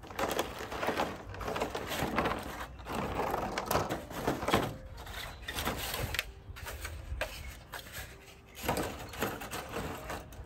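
Thin black plastic seed-starting trays and cell inserts being handled and pressed together, crinkling and clacking in irregular bursts, with a short lull about eight seconds in.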